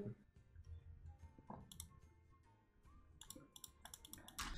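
Near silence with faint, scattered clicks and soft music; the clicks come quicker from about three seconds in, with a stronger click near the end.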